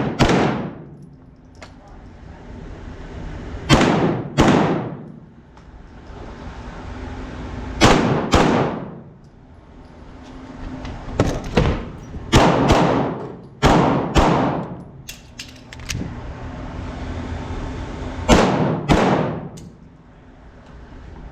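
Pistol shots fired in pairs about half a second apart, each shot with a long decaying tail: roughly six pairs spaced a few seconds apart, with a few fainter single cracks in between.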